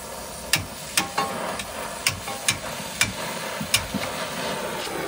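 Brazing torch hissing steadily on a copper refrigerant joint at a heat pump compressor while the joint is heated to sweat it off, with about seven sharp metallic clicks and clinks scattered through it.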